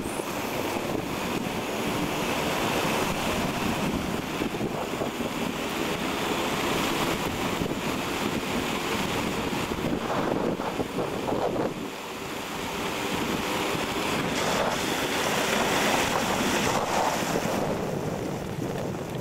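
Steady rushing wind buffeting the microphone, dipping briefly about twelve seconds in.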